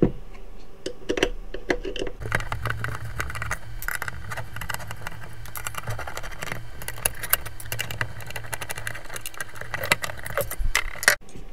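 Screwdriver and hands working the screws and sheet-metal caddy of a Quantum ProDrive ELS hard drive: many small metallic clicks, clinks and rattles, with a low hum underneath from about two seconds in.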